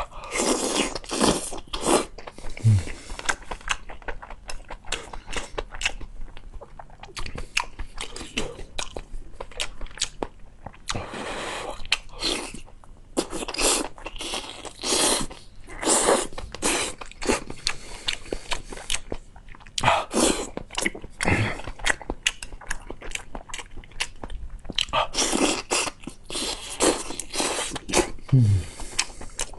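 Close-miked mouth sounds of someone biting into, crunching and chewing food, in irregular bursts.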